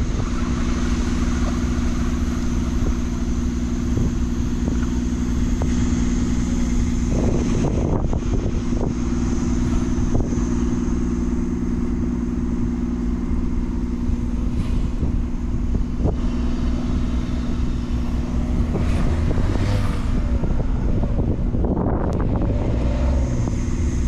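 Motor vehicle engines idling: a steady low hum holding several fixed pitches over a rumble, with a few short knocks now and then.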